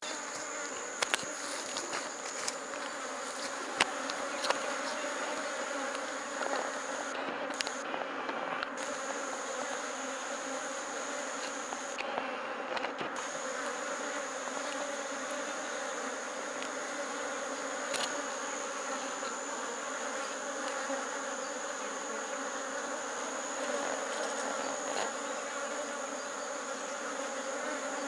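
Honeybees buzzing steadily around an opened hive, a dense even hum with a thin high whine above it and a few faint knocks.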